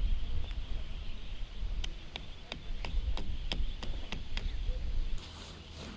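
Strong wind buffeting the microphone, with a quick run of about nine sharp knocks, roughly three a second, in the middle. The wind noise drops off abruptly near the end.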